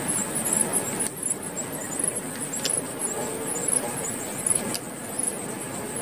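Miniature cement bricks clicking lightly, twice, as they are set into a small toy tractor's metal trailer, over a steady background hiss with rapid high-pitched chirping.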